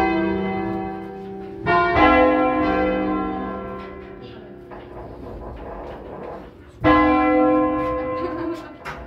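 A five-bell ring of church bells cast by the Barigozzi brothers in 1940 and tuned in C3 flat, rung by hand from inside the bell tower. The bells are struck singly: two strikes come close together about two seconds in and another near seven seconds in, and each leaves a long ringing note that slowly dies away.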